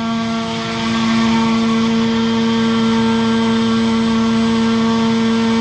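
Large three-phase brushless electric motor spinning a propeller at a steady high speed under load, producing about 1.65 kg of thrust: a loud, even drone with a strong hum and a stack of higher overtones that holds constant.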